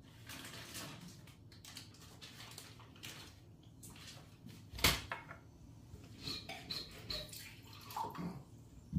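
Kitchen counter handling: rustles and light clinks of small items, with one sharp knock about five seconds in, and water being poured for a glass of water.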